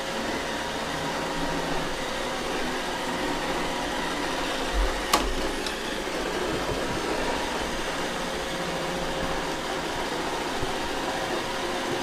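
iRobot Roomba robot vacuum running over a rug: a steady hum of the vacuum motor and brushes with a steady whine. There is a single sharp click about five seconds in.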